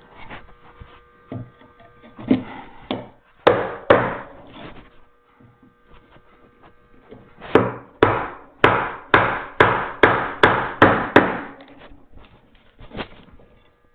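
Mallet blows driving a chisel into wood to chop a mortise by hand. There are a few scattered strikes, then past halfway a steady run of about nine blows, roughly two a second.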